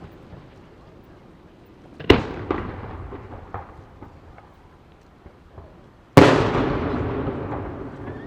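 Aerial firework shells bursting: a sharp bang about two seconds in with a few smaller pops after it, then a much louder boom about six seconds in whose rumble fades away slowly.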